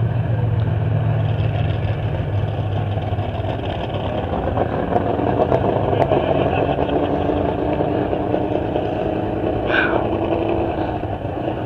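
Demolition derby car engines running at idle in a line of cars, a steady loud rumble. A higher engine note comes in midway and climbs slowly, and a short high-pitched sound is heard near the end.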